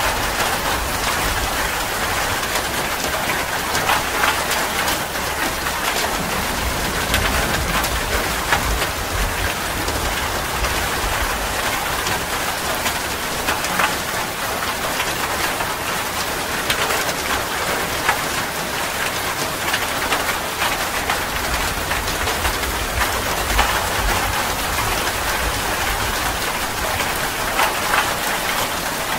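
Steady rain falling, an even hiss with scattered close drop hits.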